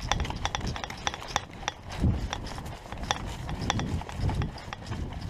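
Quick running footsteps with sharp clicks and clatter of gear, a heavier low thump landing about once a second.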